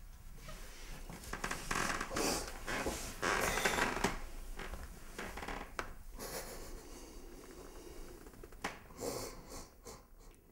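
Close breathing and sniffing in irregular rushes, loudest in the first few seconds and again near the end, with clothing rustling.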